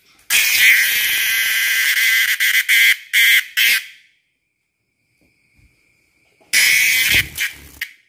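A cicada held on a hand buzzing loudly: a long buzz that breaks into short stutters and stops about four seconds in, then a second burst of about a second and a half near the end. This is the distress buzz a cicada gives when it is handled.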